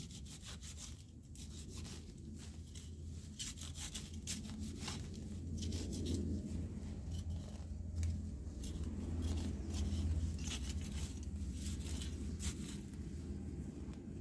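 Hand sickle cutting through leafy stems and grass close to the ground: repeated crisp slicing and tearing strokes at an uneven pace, busiest in the middle, over a low steady rumble.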